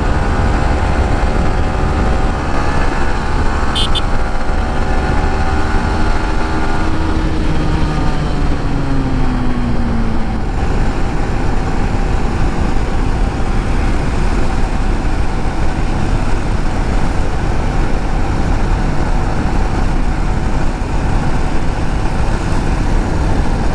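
Motorcycle on the move: a steady rushing noise with the engine note, which falls in pitch over the first ten seconds or so as the bike slows.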